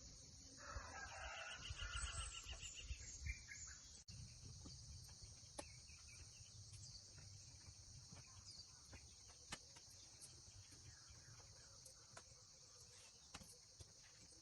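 Faint, steady high insect chirring throughout. A bird calls in a quick rapid trill for a couple of seconds about a second in, and a few soft clicks follow later on.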